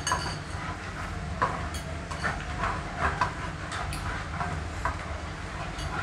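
A wooden spatula scraping and knocking in a non-stick frying pan, and a spoon clinking against a bowl. Scattered short knocks and scrapes sound over a steady low rumble.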